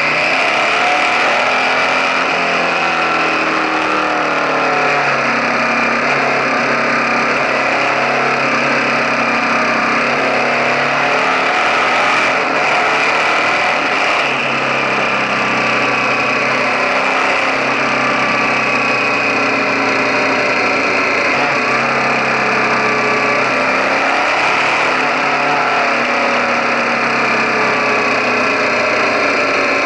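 KTM 1050 Adventure's V-twin engine running at road speed, close up from a camera on the crash bar. Its pitch rises and falls with the throttle over a steady rush of wind and tyre noise.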